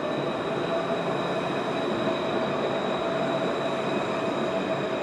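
Alstom Citadis light-rail tram passing at close range on street track, a steady rolling rumble with a continuous high whine over it.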